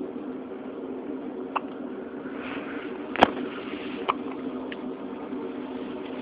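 A baby hiccuping: four short, sharp hiccups over a steady low hum, the loudest about three seconds in.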